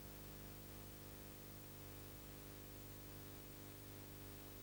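Steady hiss with a low, even hum: the empty soundtrack of a silent film, with no recorded sound.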